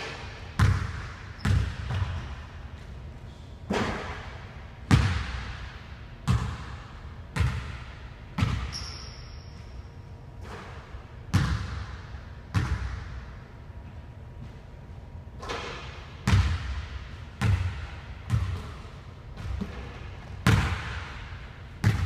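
Basketball bouncing on a hardwood gym floor in single bounces and short runs of dribbles at irregular intervals. Each bounce echoes in the large hall.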